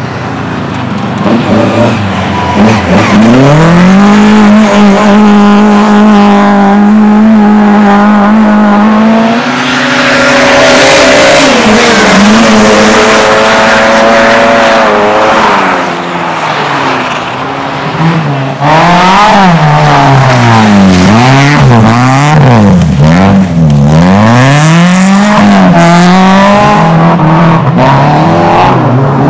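Race car engine at close range, revving up and holding high revs under full throttle for several seconds. Later the revs swing sharply down and up about once a second, as the car brakes, shifts and accelerates through a series of corners.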